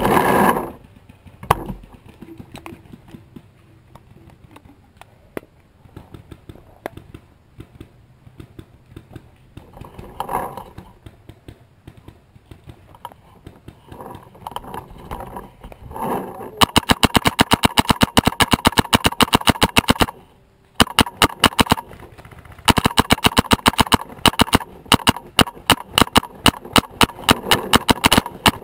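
Paintball marker firing long strings of rapid, evenly spaced shots in the second half, with a short break between volleys; scattered faint pops of other markers before that.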